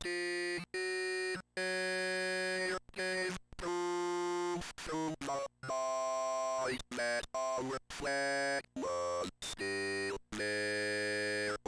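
SAM (Software Automatic Mouth) software speech synthesizer on a Commodore 64 singing a slow melody in its synthesized voice. It holds one note per syllable, each note at its own pitch, with short gaps between them.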